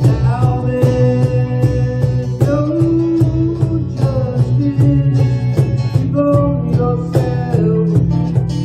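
A small band playing live: strummed guitars over a steady cajón beat, with a melody line running on top.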